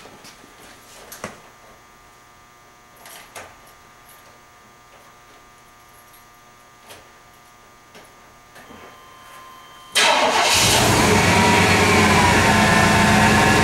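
1999 Chevrolet Tahoe's engine starting about ten seconds in, catching at once and running at a steady idle. Before it, only a few faint clicks and knocks.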